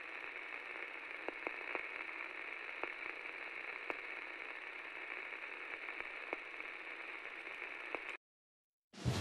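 A steady mechanical whirring hiss with scattered faint clicks, which cuts off abruptly about eight seconds in.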